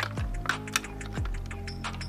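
Light, irregular clicking and tapping of small metal and plastic parts, typical of a diecast toy truck being handled, over background music.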